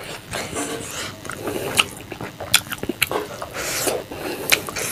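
Fingers squishing and mixing rice with fish curry on a plate, with wet, sticky clicks, then close-up eating from the fingers: chewing and mouth smacks near the end.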